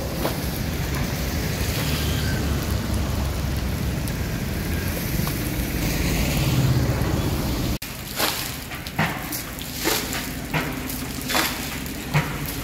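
Floodwater being bailed with a bucket and poured out onto the pavement, under a steady rushing noise with a low rumble. After a sudden break, short sharp splashes come about every half second.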